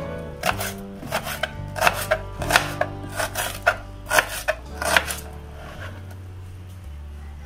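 Kitchen knife slicing an onion on a chopping board: a quick, uneven run of knife strikes, roughly three a second, that stops about five seconds in.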